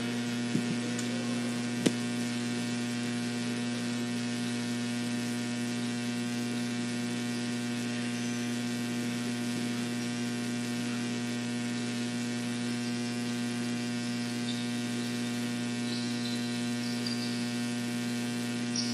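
Steady electrical mains hum with a light hiss, one short click about two seconds in.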